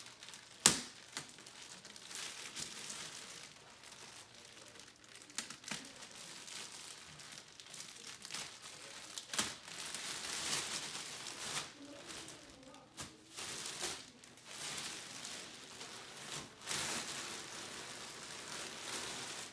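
Packaging being unwrapped by hand: continuous crinkling with tearing, and a sharp click about a second in that is the loudest moment.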